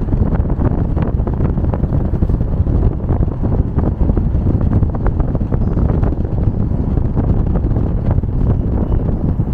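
Wind buffeting the microphone: loud, steady low-pitched noise with frequent crackles.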